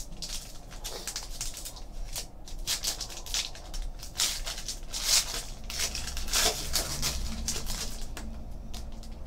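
Foil trading card pack being torn open and its wrapper crinkled and peeled back, a run of sharp crackling rustles.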